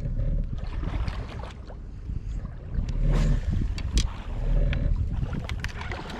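Gusts of wind buffeting the microphone in a low rumble that swells and fades, over water lapping against a boat hull, with a few light clicks.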